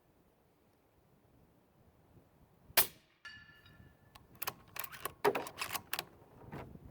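One suppressed rifle shot from a 300 Blackout rifle firing subsonic rounds through a suppressor, a single sharp crack about three seconds in, followed over the next few seconds by several smaller clicks and knocks.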